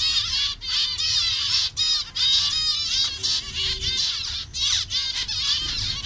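A colony of zebra finches calling at once: a dense chatter of short, overlapping calls with no break.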